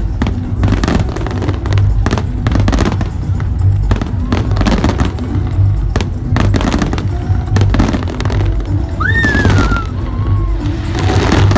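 Fireworks going off with frequent sharp bangs and crackles over music with a pulsing bass beat; a high whistling glide rises and falls about nine seconds in.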